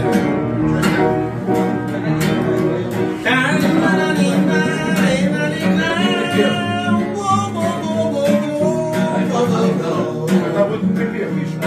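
Acoustic guitar strumming a song's accompaniment, with voices singing a melody along with it from about three seconds in.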